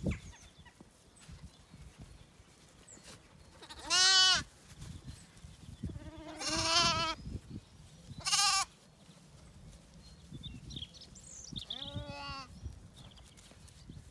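Zwartbles lambs bleating: four separate wavering calls a couple of seconds apart, the loudest about four seconds in and a short high one just past the middle.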